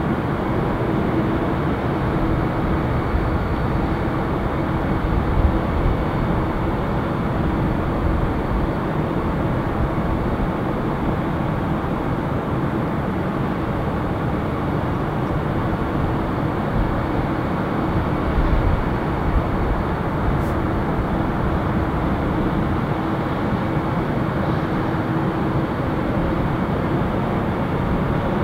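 Pratt & Whitney PW2040 turbofan engines of a USAF VC-32A (Boeing 757-200) running at taxi power: a steady low rumble with a constant hum.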